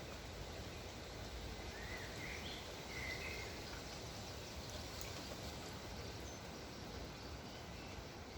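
Steady wind noise with a few short bird chirps about two to three seconds in.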